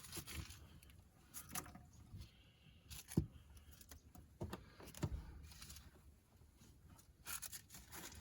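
Scattered light knocks, scrapes and rustles of hands cleaning out around a car seat, a dozen or so separate handling noises with a small cluster near the end.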